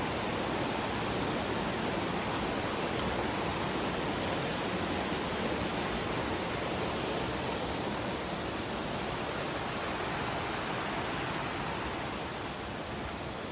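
Waterfall: a steady rush of falling water, easing off slightly near the end.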